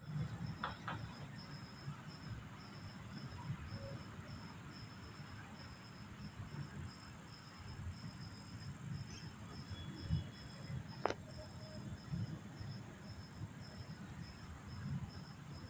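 Crickets chirping at night, a steady run of short high-pitched chirps, over a low rumbling noise, with one sharp click about eleven seconds in.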